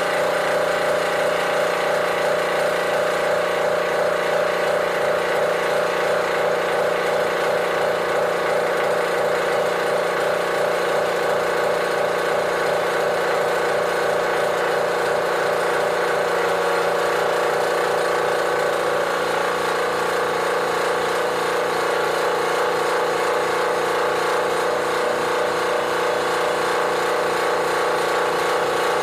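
Industrial air compressor running steadily: a constant loud mechanical drone with a fast, even pulsing.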